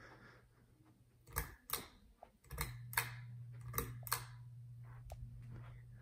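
Hunter Builder Plus ceiling fan's pull-chain switch being pulled, clicking in three pairs. A steady low hum from the fan motor strengthens about two and a half seconds in.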